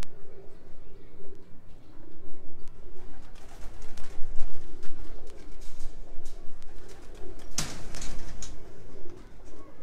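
Domestic pigeons cooing in a low, wavering drone. A brief rustling burst comes about three-quarters of the way through.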